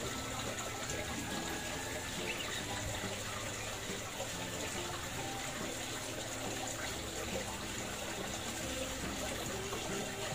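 Steady trickle and splash of running water from a garden fish pond's water feature.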